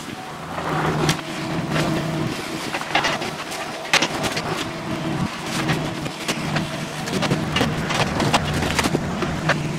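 Compact excavator's diesel engine running steadily as the machine tracks over demolition debris, with frequent sharp clanks and cracks from the steel tracks and broken wood.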